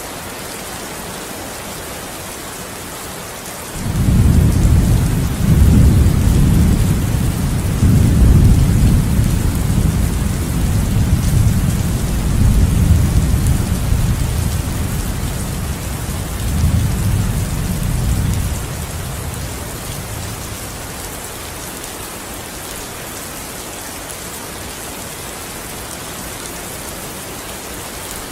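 Steady rain with a long roll of thunder that starts suddenly about four seconds in, rumbles low in several surges for about fifteen seconds, then fades away, leaving the rain alone.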